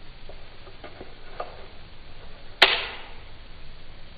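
Trigger mechanism of a home-built Glock 19 frame, with no slide fitted, being worked by hand: a few faint clicks, then one sharp metallic snap with a short ring a little past halfway.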